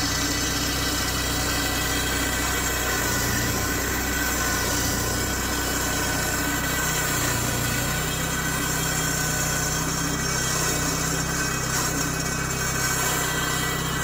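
An engine running steadily at a constant speed, a continuous drone with a low hum.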